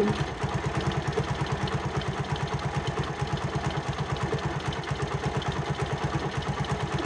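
Honda CD 70's small single-cylinder four-stroke engine idling steadily with an even beat, running with a new, stiffer timing-chain tensioner spring fitted to stop the chain's rattle.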